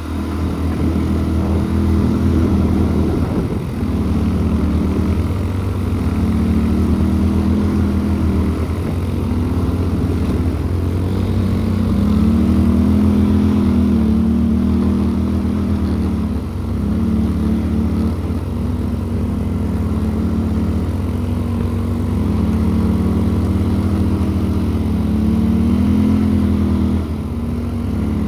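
ATV engine running under way, its pitch stepping up and down every few seconds with the throttle.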